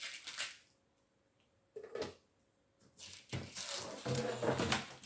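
Three bursts of light clattering and rustling from objects being handled, the longest in the second half.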